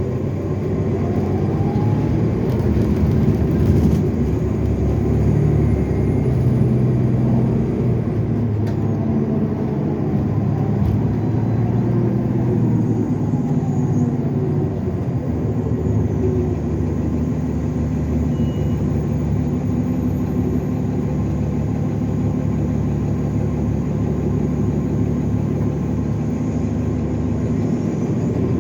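Inside a 2015 NovaBus LFSA hybrid bus under way: a steady low rumble from its Cummins ISL9 diesel and Allison EP50 hybrid drive, with whines that rise and fall in pitch as the bus speeds up and slows. A high turbo whine runs over it.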